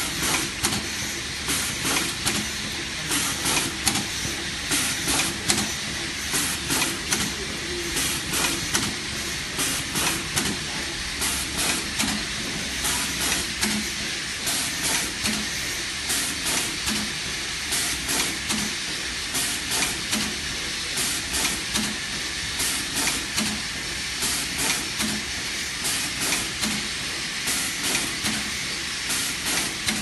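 Automatic twin-parallel wire stripping, crimping and tin-soldering machine running its cycle: short, sharp bursts of compressed air from its pneumatic actuators repeat in a quick, uneven rhythm over a steady hiss.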